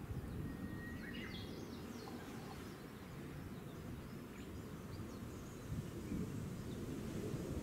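Outdoor ambience: a steady low rumbling noise, with a small songbird singing about a second in, a held whistle followed by a quick higher phrase, and a few faint chirps after it.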